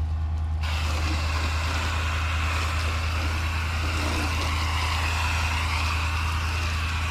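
Hose-end foam gun spraying soapy foam with a steady hiss, starting about half a second in, over a constant low hum.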